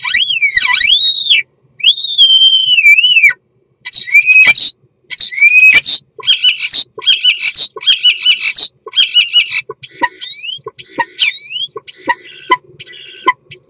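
A common starling giving its courtship song at close range inside a wooden nest box. It opens with two long, wavering whistles, then from about four seconds in runs into a string of short phrases of rapid clicks, rattles and quick gliding notes.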